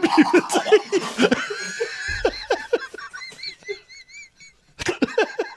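Two men laughing helplessly in rapid bursts, one of them spluttering after his drink went up his nose. About three seconds in, the laughter thins to a high-pitched wheeze, then breaks out again near the end.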